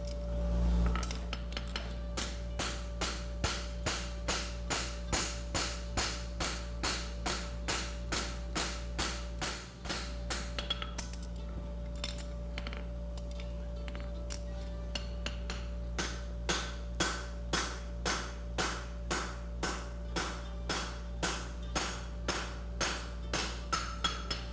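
Farrier's hammer striking a red-hot 1/2 by 1 1/4 inch steel bar on the anvil while forging a horseshoe, steady ringing blows about two to three a second, thinning out near the middle and picking up again after.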